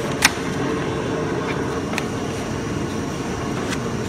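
A flatbed cutting plotter runs with a steady low hum, as from its vacuum hold-down blower. Over it comes one sharp click just after the start, then a few lighter ticks as the cut paperboard is handled and folded.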